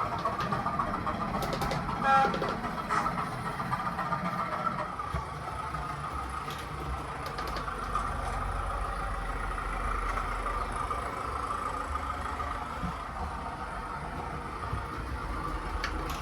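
Class 205 'Thumper' diesel multiple unit engine sound, played by a LokSound sound decoder through a model train's small speaker. The engine runs steadily, with a few clicks and a heavier low rumble for a few seconds around the middle.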